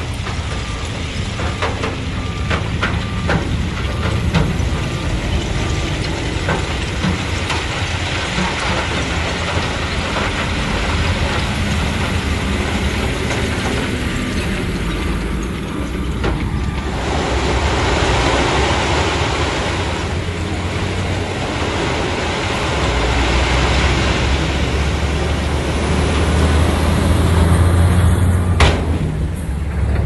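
Komatsu bulldozer's diesel engine running while the machine works, with scattered metal clanks in the first several seconds. The engine grows louder over the last several seconds, and a sharp knock sounds near the end.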